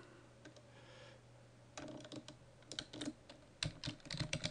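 Computer keyboard being typed on: after a quiet start, a run of irregular keystrokes begins about two seconds in as a password is entered at a terminal prompt, with a louder, heavier keystroke about three and a half seconds in as the entry is submitted.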